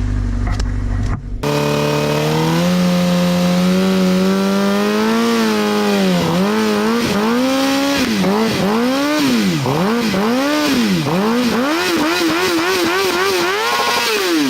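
Suzuki GSX-R750 inline-four motorcycle engine revved hard, first held high and climbing slowly, then blipped up and down about once a second, with quicker, shorter swings near the end.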